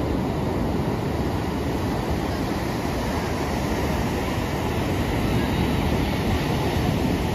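Sea wind buffeting the microphone over the steady rush of breaking surf, a constant rumbling roar.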